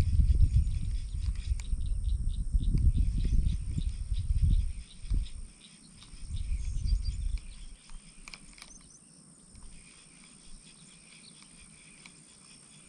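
Frogs calling in the background as faint scattered clicks, with a steady insect drone. A low rumble on the microphone covers the first half and dies away about halfway through.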